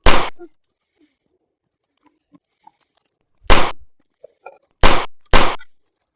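Four loud, sharp shot-like bangs, each with a short fading tail: one right at the start, then three more from about three and a half seconds in, the last two close together.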